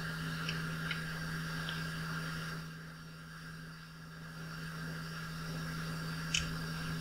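Steady low hum of a small fan or electrical equipment, with a few faint ticks as a thin tool touches the circuit board while flux is applied.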